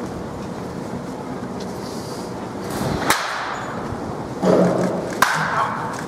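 Two sharp cracks of a baseball bat hitting the ball in batting practice, about two seconds apart, over a steady background noise. A short louder burst of sound comes just before the second crack.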